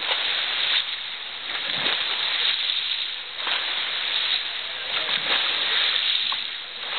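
Pool water splashing and sloshing under a steady rushing noise that swells and falls every second or so.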